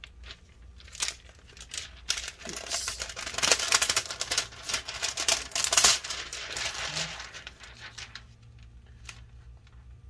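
Crinkling and rustling of a thin plastic protective film from a laptop screen being peeled and handled, in bursts that are loudest in the middle, then fainter handling noises near the end.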